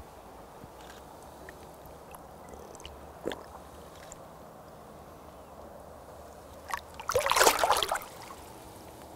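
Shallow lake water splashing and sloshing as a carp is released from the angler's hands: a small splash about three seconds in, then a louder splashing lasting about a second near the end.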